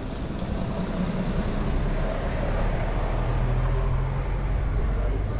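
A coach bus's diesel engine running close by with a low steady drone, over general city traffic noise.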